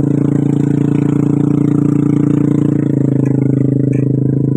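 Small motorcycle engine running steadily with a droning note, its pitch dropping slightly about three seconds in.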